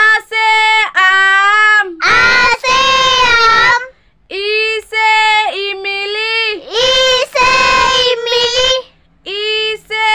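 A child's high voice singing the Hindi alphabet rhyme in short sing-song phrases with brief pauses between them.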